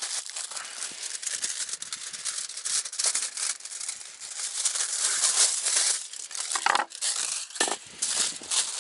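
Aluminium foil crinkling and rustling as it is wrapped tightly around a fish, with a fresh sheet cut off the roll with a knife.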